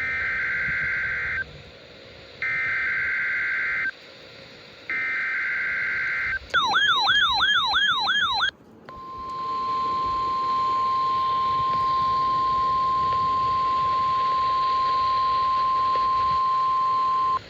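NOAA Weather Radio alert tones for a Required Weekly Test. First come three short bursts of buzzy SAME digital header data, each about a second and a half long. Then a fast warbling siren-like alarm sounds for about two seconds, and after a short break the steady 1050 Hz weather-radio alert tone holds for about eight seconds.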